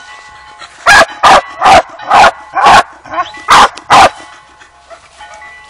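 A dog barking: seven loud, sharp barks in quick succession over about three seconds, then it stops.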